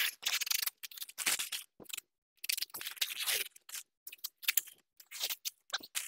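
Irregular short scuffs, rustles and clicks of a person moving about and handling a tool, with brief silent gaps between them.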